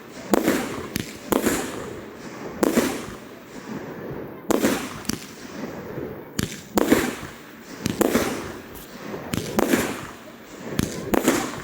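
Fireworks display: a string of aerial shells going off, loud bangs about one a second at irregular spacing, some in quick pairs, each fading away in a rumbling echo.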